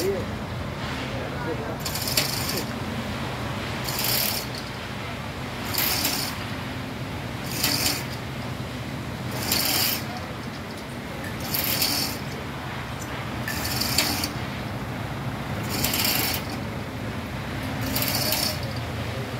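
Manual chain hoist (chain block) being worked by its hand chain: a short burst of ratchet clicking and chain rattle about every two seconds, ten times in a row. A steady low drone runs underneath.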